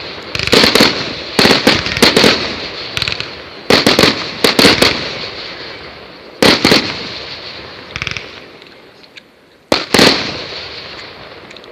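Fireworks exploding: a run of loud bangs in quick clusters, each fading away after it, coming less often toward the end.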